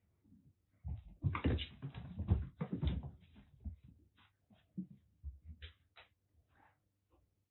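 Kittens playing rough: a flurry of thumps and scuffling from paws and bodies landing and scrambling, then a few lighter scattered taps.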